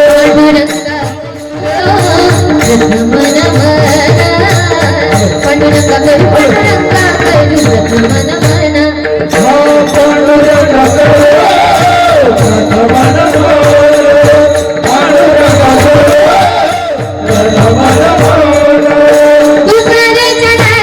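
Instrumental devotional kirtan music: a harmonium melody over held drone notes, with hand-drum strokes keeping the rhythm.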